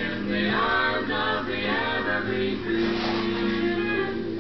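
Background music from a song, in a stretch between its sung lines.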